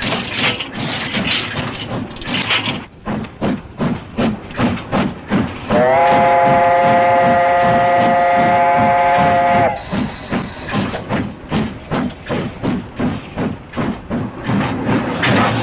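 Steam locomotive working a train, its exhaust chuffing at about two beats a second. About six seconds in, its steam whistle sounds one long chord of several tones, held for about four seconds and cut off sharply, while the chuffing goes on.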